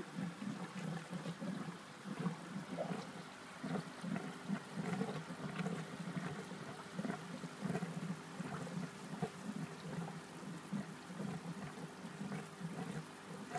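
Koi pond airlift gurgling: air-lifted water surging up the PVC pipe and splashing into the filter chamber, an irregular, continuous burbling.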